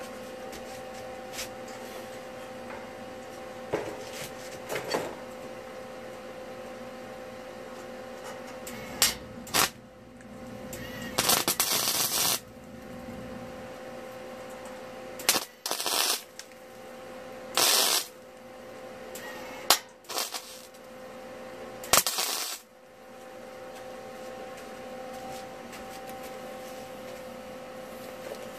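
Workshop work on a mower's sheet-metal panel: scattered clicks and knocks, and four short, loud rushing blasts of noise, over a steady hum.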